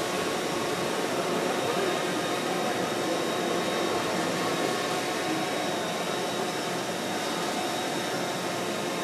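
DJI Phantom 4 quadcopter hovering: a steady whir from its four propellers, with a faint murmur of voices in the hall.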